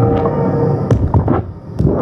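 Experimental electronic performance music: held tones fade out, and from about a second in a run of sharp crackling hits and low thuds takes over.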